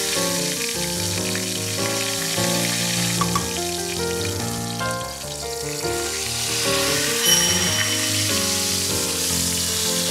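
Flour-dusted carp roe shallow-frying in oil in a stainless steel pan, a steady sizzle, with a brief sharp sound about seven seconds in as the roe is turned over with chopsticks. Background music of quick melodic notes plays over it.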